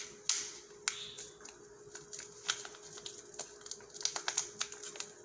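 Small sazón seasoning packet being torn open and its powder shaken out: a run of irregular, sharp crinkling clicks from the packet and fingers, over a faint steady hum.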